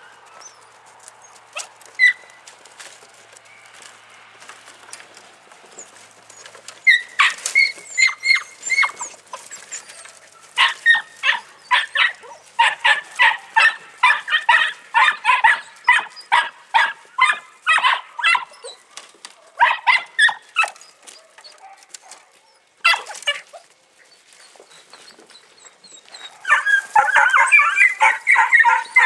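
Podenco puppies barking in quick, high-pitched yaps, a few a second. The barking starts about a quarter of the way in, breaks off briefly past the middle, and comes back denser near the end.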